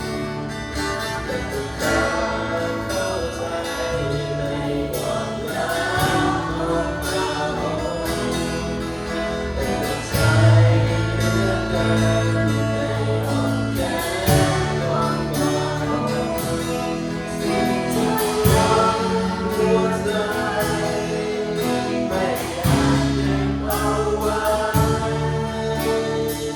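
Congregational worship song: voices singing together over a band with guitar and bass.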